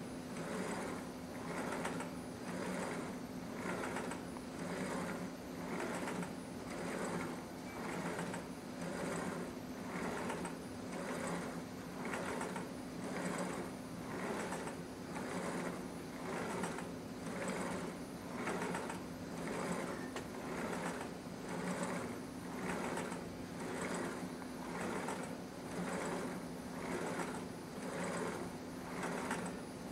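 Small electric motors and gearing of a scale motion platform and two model crane arms running continuously, a mechanical whir that swells and fades in an even, repeating rhythm over a steady hum.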